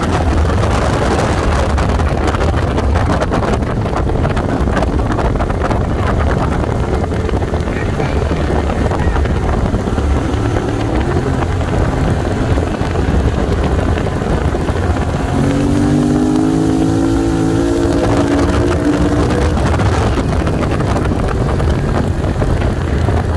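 Off-road vehicle's engine running while driving on a dirt road, with tyre rumble and wind buffeting the microphone. The engine note rises in pitch a few times about two-thirds of the way through as it speeds up.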